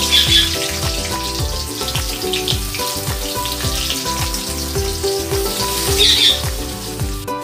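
Sliced onions frying in hot oil in a kadai, sizzling steadily with a couple of louder swells, until the sizzle cuts off near the end. Background music with a steady beat plays underneath.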